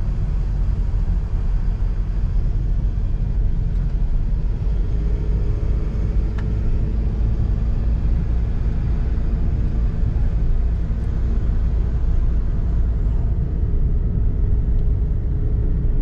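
Steady low rumble of a moving car's road and engine noise, heard from inside the cabin.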